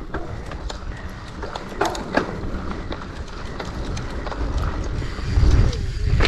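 Mountain bike rolling over a rocky trail: tyres crunching on stones and the bike rattling in quick irregular clicks, over a steady low rumble that grows louder about five seconds in.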